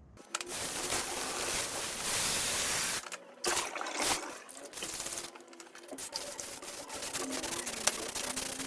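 Sandpaper rubbing on a walnut wood bowl, a steady scratchy hiss that stops briefly about 3 seconds in and again about 5 seconds in.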